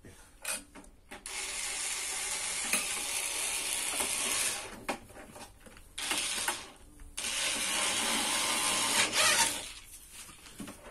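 Screwdriver driving screws into the metal side panel of a coffee machine, heard as a steady mechanical whirring and ratcheting. It comes in three runs: about three seconds, then a short one, then about two and a half seconds.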